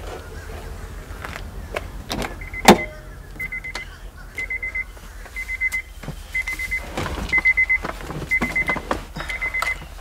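A sharp click about two and a half seconds in, then a car's interior warning chime beeping steadily, about once a second, while someone climbs into the driver's seat with scattered rustles and knocks.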